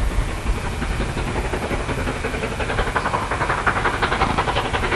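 Steam locomotive hauling a passenger train, its exhaust beats coming through as a fast, even chuffing that grows louder over the second half, over a low steady rumble.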